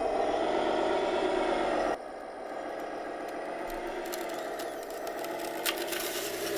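1:14 scale RC wheel loader running, with the steady hum of its simulated diesel from an onboard engine-sound module over its electric drive. The level drops suddenly about two seconds in. Light rattles, clicks and a scrape follow toward the end.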